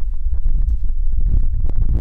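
Wind buffeting the microphone: a loud, unsteady low rumble, with scattered light clicks over it.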